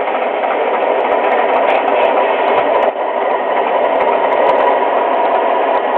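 Lionel TMCC O-gauge crane car running, its onboard sound system playing a steady diesel engine idle, with a brief dip about three seconds in.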